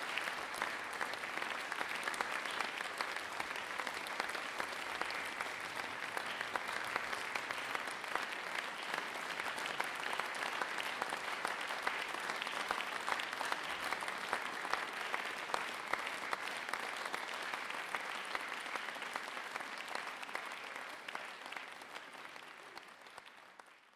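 Audience applauding, many hands clapping at a steady level, fading out near the end.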